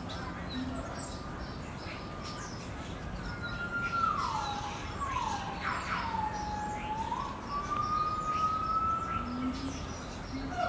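A siren wailing, its pitch sliding down and back up over about six seconds starting a few seconds in.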